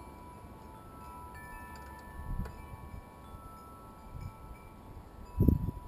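Wind chimes ringing softly, several tones starting at different moments and ringing on. A soft knock comes about two and a half seconds in, and louder low knocks from handling the mower come near the end.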